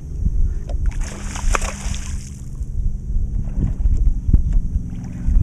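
Water splashing and sloshing around a bass boat over a low steady hum, with a louder splash lasting about a second, starting about a second in.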